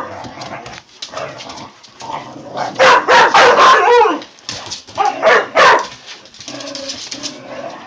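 Clumber spaniels playing rough, barking and yipping in short, loud bursts, most loudly about three seconds in and again about five seconds in.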